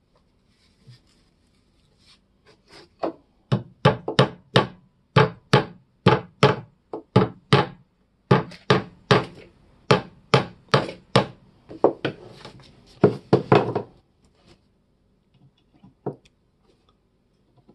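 Small hammer driving small nails into pre-drilled holes along a wooden axe haft: a long run of sharp taps, two or three a second, some in quick pairs, stopping about fourteen seconds in. A few faint clicks follow as the next nail is set by hand.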